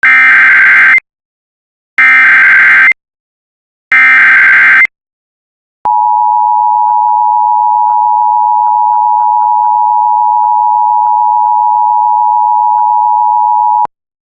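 Emergency Alert System opening: three one-second bursts of SAME header data screech, two seconds apart, followed about a second later by the steady two-tone EAS attention signal, held for about eight seconds and cut off sharply.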